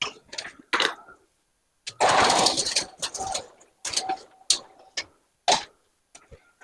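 Knocks and clatters of workshop equipment being moved, with a longer rolling scrape about two seconds in and more sharp knocks after it.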